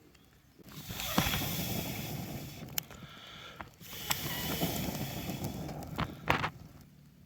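Someone getting a campfire going: two long rushing spells of noise with a short pause between, broken by a few sharp snaps and cracks.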